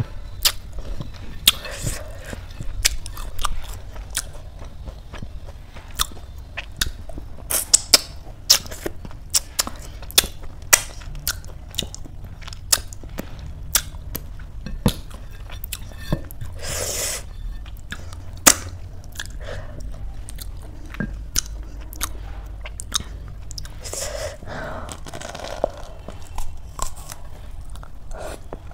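Close-miked wet mouth sounds of curry-covered fingers being licked and sucked clean, with many sharp smacks and clicks.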